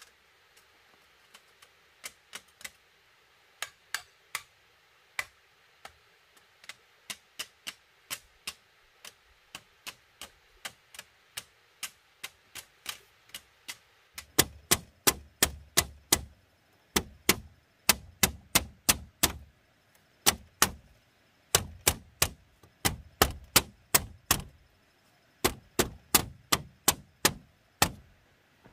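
Bamboo being knocked into place on a woven bamboo wall: an uneven run of sharp wooden clicks and knocks. The knocks come lighter and sparser at first, then about halfway through become louder and quicker, several a second, with a heavier thump under each.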